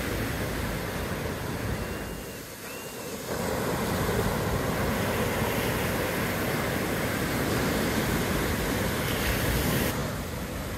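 Ocean surf washing in a steady roar of breaking waves. It eases about two seconds in, swells again a second later, and falls back near the end.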